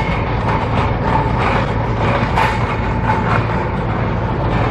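Strong gusty wind from a passing dust devil buffeting the microphone: a loud, continuous low rumble with uneven swells.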